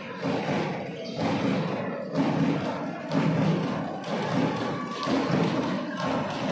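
Repeated low, dull thuds, about one a second, over a steady background din.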